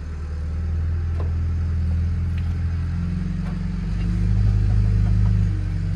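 Backhoe engine running: a steady low rumble that swells and shifts pitch about four seconds in, then eases back near the end.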